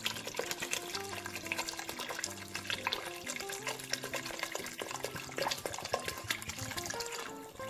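Water poured in a steady stream into a steel cooking pot, splashing into the broth around a whole chicken, over soft background music.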